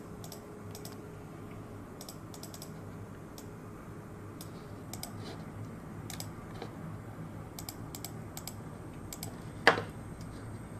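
Typing on a computer keyboard: scattered, irregular key clicks, with one louder click near the end.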